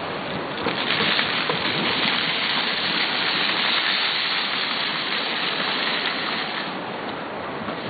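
Outdoor fountain's water jets splashing steadily, a dense rush that swells about a second in and eases off near the end.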